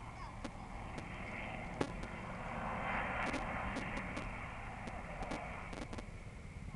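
Helicopter flying low past, its rotor and engine noise swelling to a peak about three seconds in and then fading, with scattered sharp clicks.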